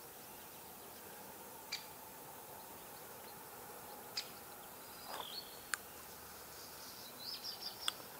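Faint outdoor background with a few short, high bird chirps in the second half and a handful of small sharp clicks.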